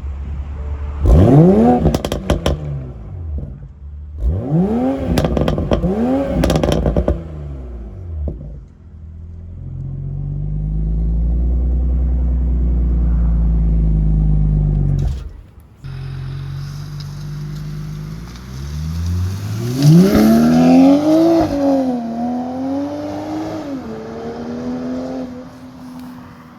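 2020 Toyota Supra with a Remark cat-back exhaust: two quick revs from idle, each falling back with a run of pops and crackles. Then a steady, building low exhaust drone, a brief dropout, and a longer stretch where the engine note rises and wavers up and down.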